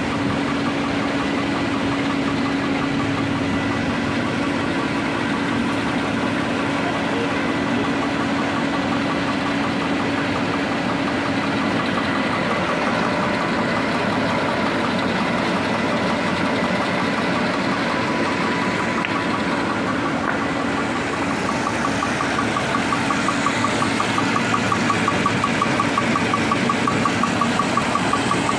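Automatic candle-making machine running: motors and feed rollers drawing a wax-coated wick through, with a steady hum and a fast, even ticking. The ticking grows a little louder and more pulsing in the last several seconds.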